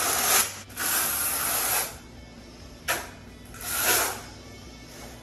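Notched steel trowel scraping thinset mortar across the back of a large porcelain tile panel, in four hissing strokes of half a second to a second each. The panel is being back-buttered with a full coat of mortar so that no air pockets or voids are left under it.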